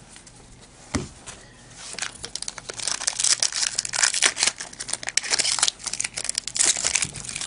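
Foil wrapper of an Upper Deck Black Diamond hockey card pack crinkling and tearing as it is opened by hand. A single knock comes about a second in.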